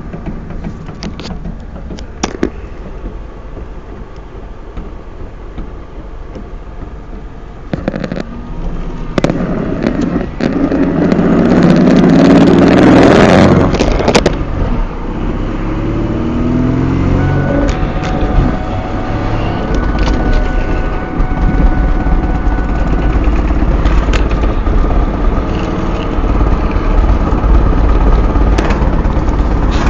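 Ford Mustang rear end thumping and popping while coasting off the throttle, heard as scattered sharp knocks over road and engine noise, with a louder rushing swell in the middle. The knocking follows wheel speed rather than engine revs, and the owner suspects a U-joint or the differential.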